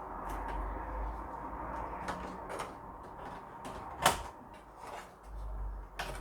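Scattered clicks and knocks of plastic and metal parts being handled inside an Acorn RISC PC case as its cables are dug out, with one sharp, louder click about four seconds in, over a low steady hum.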